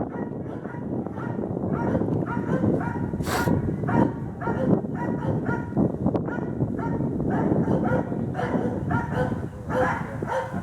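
Hunting dogs barking rapidly and without pause, baying a wild boar.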